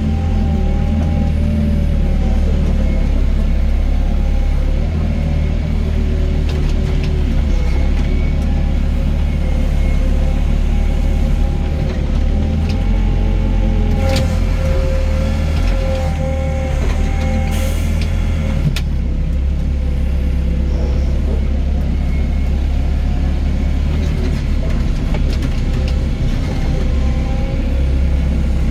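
Doosan DX55 mini excavator's diesel engine running steadily, with a low rumble, a wavering whine over it, and a few sharp knocks around the middle.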